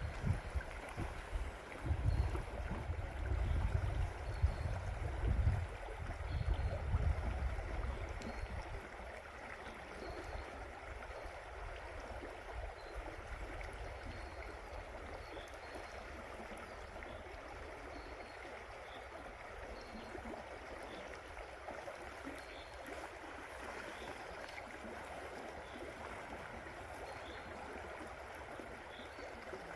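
Small stream running over a shallow gravel riffle: a steady rush of water. Gusts of wind buffet the microphone with low rumbles during the first several seconds, then die down.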